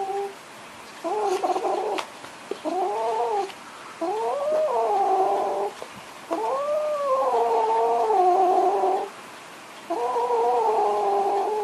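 Cat yowling (caterwauling): a string of about five long, drawn-out yowls, each rising then falling in pitch, the longest lasting over two seconds.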